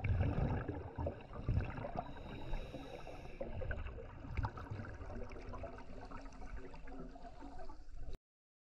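Muffled underwater sound recorded by a GoPro in its housing: low rumbling and bubbling from a diver's scuba regulator, with several louder surges. It cuts off abruptly near the end.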